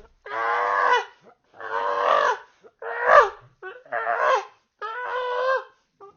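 Monkey calls: a series of about five short, pitched cries, each under a second, separated by brief silent gaps.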